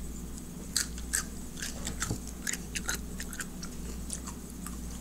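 A person chewing a mouthful of California roll sushi, heard as irregular short clicks over a steady low hum.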